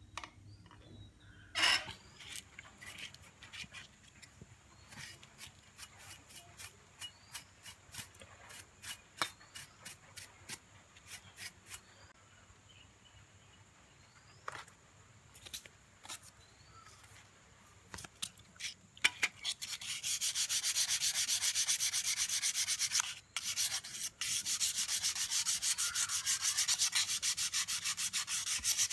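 Hand abrasive scrubbing or sanding on a brass piece. At first there are scattered scrapes and clicks, then partway through a fast, steady back-and-forth scrubbing that stops briefly twice.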